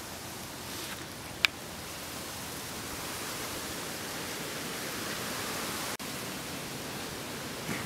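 Steady hiss of background noise, with one short sharp click about a second and a half in.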